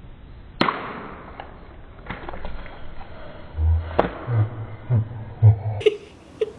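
An egg cracked against a person's head: one sharp crack about half a second in, then softer handling noises, another click about four seconds in and a few low thuds.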